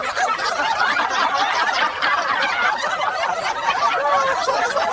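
A parrot cackling with rapid, warbling, laugh-like chatter, with a couple of clearer gliding whistled notes near the end.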